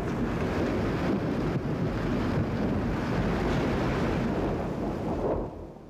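Steady roar of storm wind over a deep rumble, fading out near the end.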